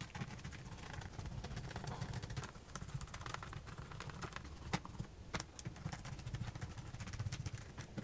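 Small screwdriver driving screws into a laptop's plastic bottom case: faint scattered clicks and scrapes, with two sharper ticks about five seconds in.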